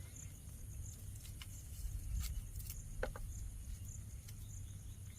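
Light drizzle falling on a camping tarp: scattered single drop taps over a low steady rumble. An insect chirps with a high, evenly spaced pulse, about three chirps every two seconds.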